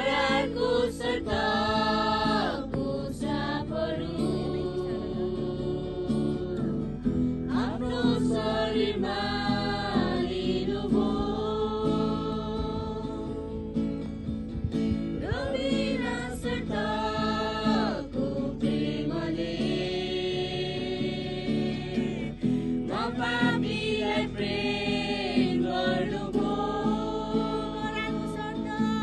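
A group of young people singing a Christian worship song together, with a strummed acoustic guitar.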